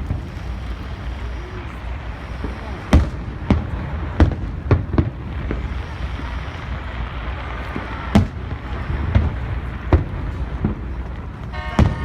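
Aerial fireworks bursting: sharp bangs at irregular intervals, often about half a second to a second apart, over a steady low rumble.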